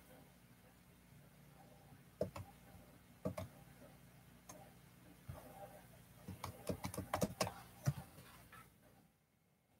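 Computer keyboard typing: scattered single key clicks, then a quick run of clicks a little past halfway, over a faint low hum that cuts out near the end.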